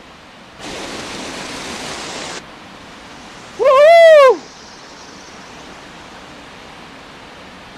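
Steady rushing of a fast-flowing river. Shortly after the start a louder hiss comes in for about two seconds and stops suddenly. About four seconds in there is a short, loud cry that rises and falls in pitch, the loudest sound.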